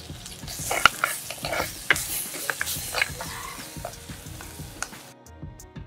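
Wooden spoon stirring banana flower curry in a cooking pot, with a cluster of sharp knocks and scrapes against the pot over a hiss in the first three seconds or so.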